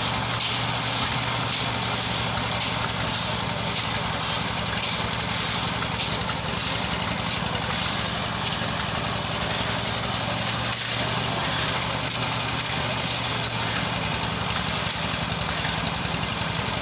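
An engine running steadily at a constant speed with a low hum, on a construction site.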